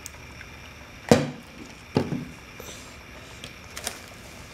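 Two sharp knocks about a second apart, then a few faint clicks, as a toddler handles toys and packages from a gift basket.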